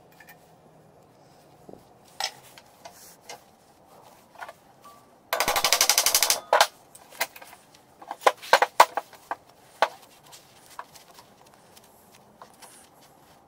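Metal clinks and taps of steel parts being handled at a bench vise. About five seconds in, a rapid rattling run of strikes lasting about a second, from a hammer striking a thin steel strip clamped in the vise. This run is the loudest part, followed by a cluster of sharp metallic clicks.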